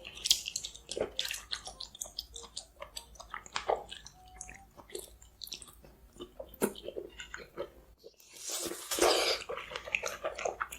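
Close-miked eating: bites and chewing with many short sharp clicks. About eight seconds in there is a denser noise lasting about a second.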